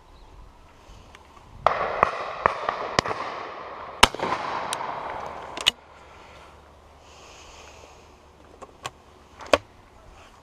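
Shotgun fire at a driven pheasant shoot: a rapid string of sharp shots with echo for about four seconds, beginning a couple of seconds in, the loudest about four seconds in, then three fainter, more distant shots near the end.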